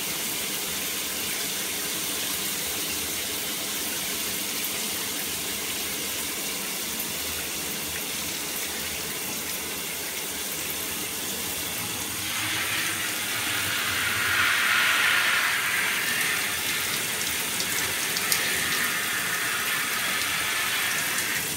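Shower spray running steadily in a tiled shower, splashing on an arm; the hiss of the water gets louder about halfway through.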